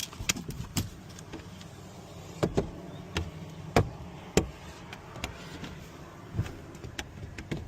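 Irregular light clicks and taps, about one or two a second, over a steady low rumble.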